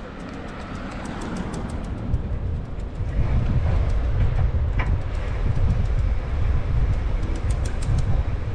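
Wind buffeting the microphone of a bicycle-mounted action camera while riding, with tyre noise on asphalt: an uneven low rumble that grows louder about three seconds in, with scattered light clicks.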